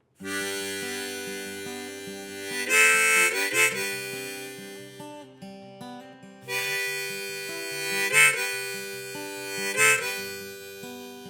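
Instrumental song intro: a harmonica plays long held notes that swell loud a few times, over acoustic guitar.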